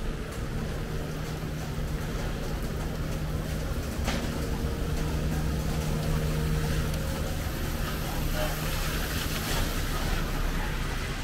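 City street traffic: a vehicle engine running close by with a steady low hum, with traffic noise swelling in the second half and a sharp click about four seconds in.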